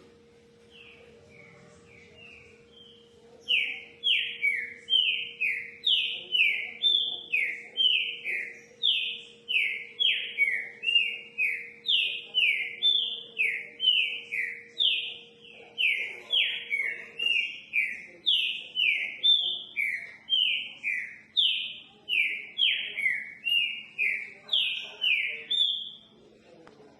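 Green-winged saltator (trinca-ferro) singing a long run of clear downslurred whistled notes, repeating them at about two a second. The song starts softly and turns loud after a few seconds.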